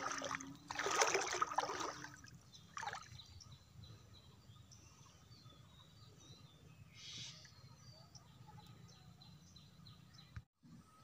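Water splashing and sloshing a few times in the first two seconds and once more just after, then a quiet stretch with faint bird chirps.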